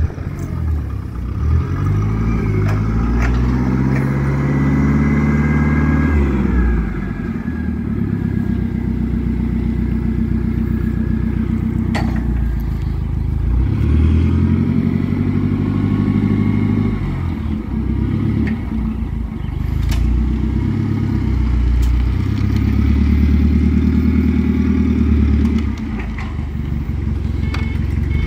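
TCM FG15N18C forklift's dual-fuel engine running as the forklift is driven, its pitch rising and falling with the throttle several times, with a few sharp clicks.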